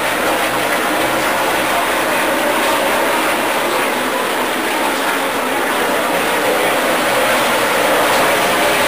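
NASCAR Cup stock car V8 engines of the field running around the circuit, heard as a loud, steady drone with no single car passing.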